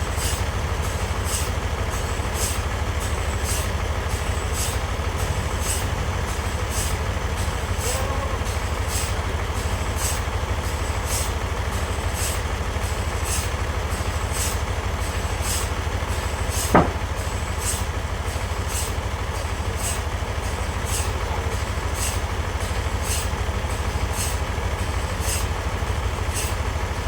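Sawmill machinery running steadily, with a low hum and a light rhythmic ticking about twice a second. There is one sharp click about two-thirds of the way through.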